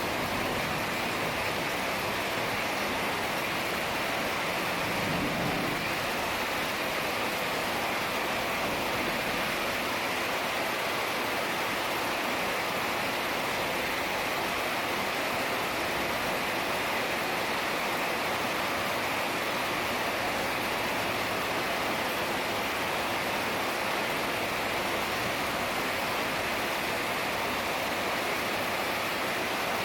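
Heavy rain falling steadily, an even hiss of downpour with no let-up.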